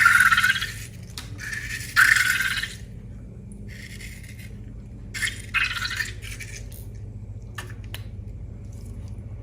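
Slime being squeezed and pulled, giving wet squelching sounds in three bursts, followed by two small sharp clicks near the end.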